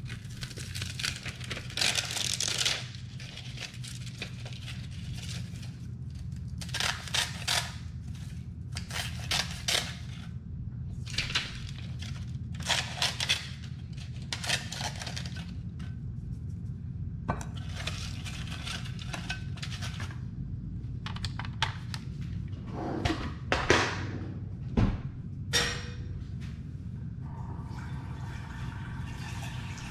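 Kitchen scissors snipping gelatin sheets into small pieces, in repeated bursts of crisp cuts with short pauses between. A steady low hum runs underneath.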